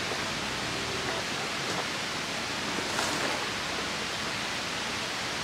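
Steady, even rushing noise of the outdoor surroundings, with no distinct events standing out.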